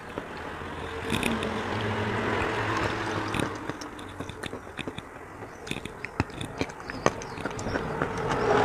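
Fingers scooping and scraping through wet chalk paste in a plastic tub, with sharp crunching clicks of chalk being chewed. A low steady hum swells about a second in and fades out a little past halfway.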